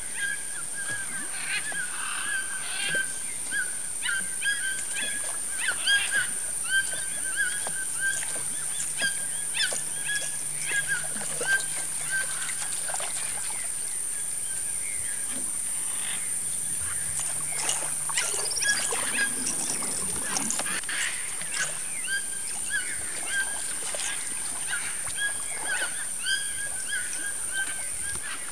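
Birds calling over and over in short repeated notes, over a steady high-pitched whine; a faint low hum runs through the middle.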